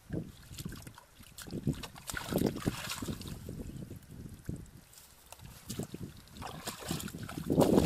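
Hands scraping and digging in dry, caked mud among grass, with irregular rustling and scrapes, mixed with wind buffeting the microphone. The loudest burst of handling noise comes near the end.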